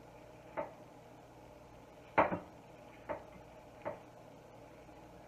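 A spoon knocking against a glass mixing bowl while batter is being stirred: four sharp knocks over a few seconds, the second the loudest and doubled.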